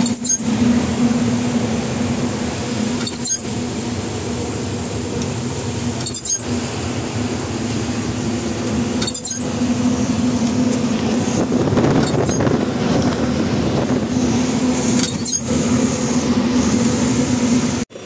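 Truck engine and tyre noise heard from inside the cab while driving on a wet road: a steady drone with brief breaks about every three seconds.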